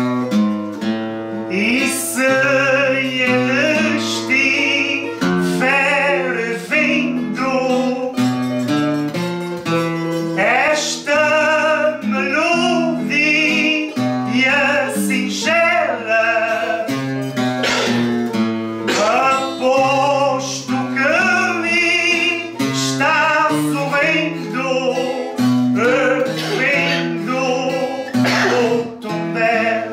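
A singer with strong vibrato sings over plucked viola da terra and guitar accompaniment.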